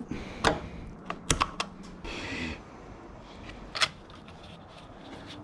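Plastic zip ties being cut and pulled off motorcycle turn-signal wiring: a few sharp clicks and snaps, three in quick succession about a second and a half in, with a brief rustle of handling just after.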